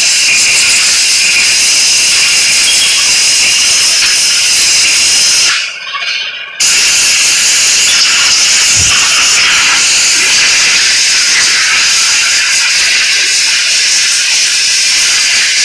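Loud, steady hiss of compressed air from a blow gun, blasting the gunk out of a chainsaw bar's guide groove and oiler ports. The air cuts off for about a second around five and a half seconds in, then blows again.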